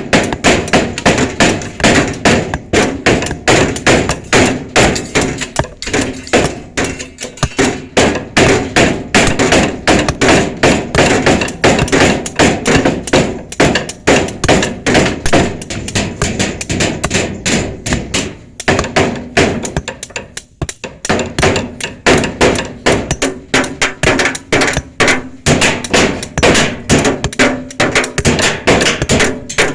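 Rapid hammering, several blows a second and overlapping, with a short lull about twenty seconds in.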